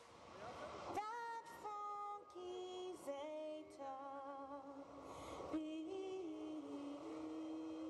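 A small group of women singing slowly a cappella, holding long notes that move step by step in pitch; from a little past halfway one note is held steadily.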